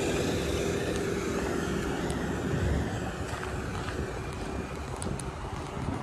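A minivan driving past close by, its tyre and engine noise easing off after about three seconds into steady road traffic noise.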